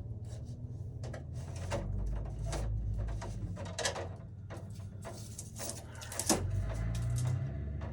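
Scattered clicks and scrapes of wires and small parts being handled and pushed into place in an electrical breaker panel, over a low steady hum. The loudest knock comes a little after six seconds in.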